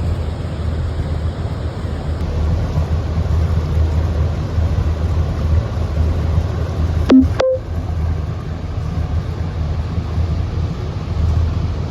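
Steady low rumble of wind buffeting the microphone over a boat's running engine. About seven seconds in there is a brief tonal blip and a momentary dropout.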